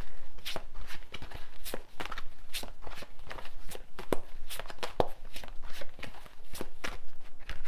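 A deck of oracle cards being shuffled by hand, giving an irregular run of sharp card snaps and flicks, several a second.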